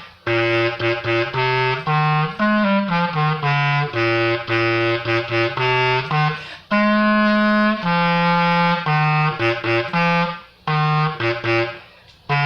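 A low-pitched wind instrument playing a simple beginner melody on its own, without accompaniment: a line of held notes with short breaks for breath between phrases.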